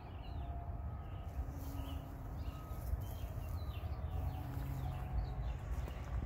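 Small birds chirping faintly, short quick chirps scattered throughout, over a steady low rumble.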